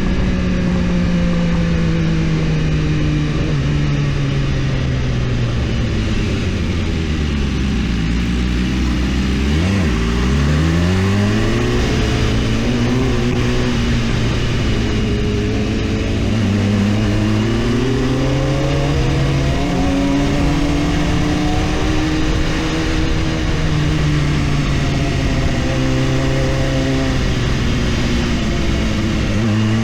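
BMW S1000RR inline-four engine running under way, its revs falling for several seconds, then rising and dropping repeatedly as the bike accelerates and eases off.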